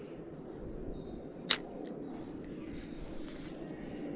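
Steady low outdoor background noise, with one sharp click about a second and a half in.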